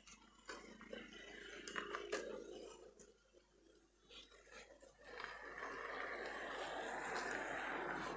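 Compressed air hissing steadily from an air-line chuck into a motorcycle's rear tyre, starting about five seconds in. Before that, a few faint clicks and handling sounds.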